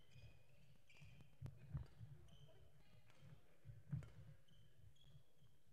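Faint sounds of a badminton rally: players' footsteps thudding on the court and short shoe squeaks, with a few sharp racket strikes on the shuttlecock, the loudest about four seconds in.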